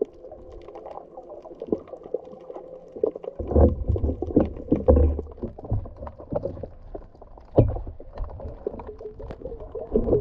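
Muffled water movement heard from a submerged camera: sloshing and rumbling with irregular low thuds from about three and a half seconds in, over a faint steady hum.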